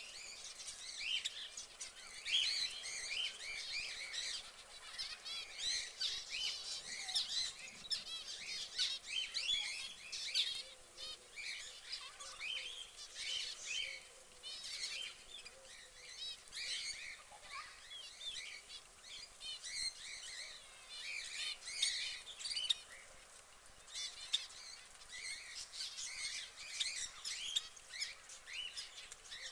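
Domestic canary singing a long, rapid warbling song of chirps and trills, with a short lull about three-quarters of the way through.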